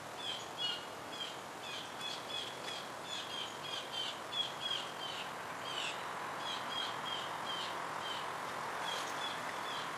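Small birds chirping, a quick run of short high calls several times a second, over a steady background rush of outdoor noise.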